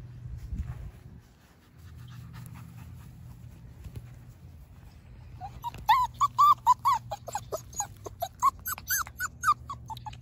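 Mini Australian Shepherd puppy whimpering: a quick run of short, high whines, about three or four a second, starting about halfway through.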